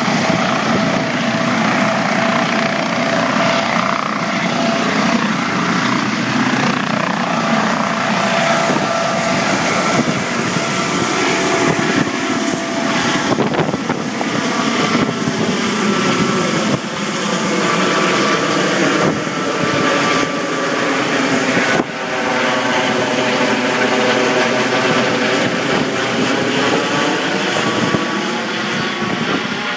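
Twin-turbine Eurocopter EC155 helicopter lifting off and climbing away. The turbines and rotors run steadily and loudly, with a whine whose pitch wavers and slides in the second half as the helicopter turns away.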